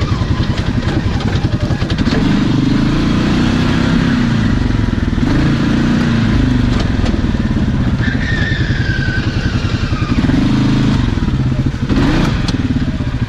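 Polaris Ace 570 engine running under load as the machine is driven off-road, its revs rising and falling, louder through the middle, with a brief dip near the end. Scattered clatter from the machine over rough ground.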